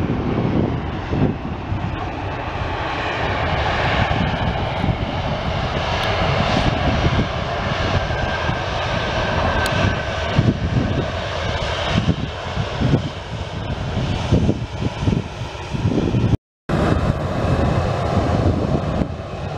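Boeing 737-800's CFM56 jet engines running steadily as the airliner touches down and rolls out along the runway, with a faint whine over the roar. The sound cuts out for a split second near the end.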